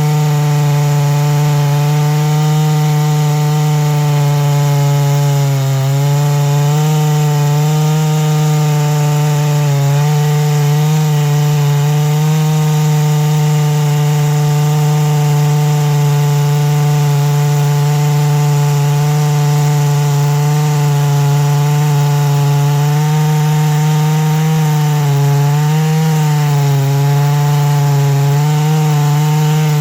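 Chainsaw in a chainsaw mill running under load, ripping lengthwise through a large black oak log to cut a slab. The engine holds a steady pitch, dipping slightly a few times as the chain bites.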